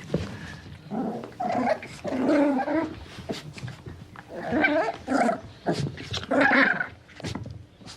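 A puppy vocalising in a series of short bursts with brief gaps between them, about five in all.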